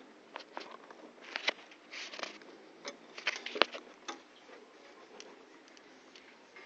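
Scattered clicks and knocks of hands handling a motor scooter's speedometer cable and plastic parts, most of them in the first four seconds, then faint.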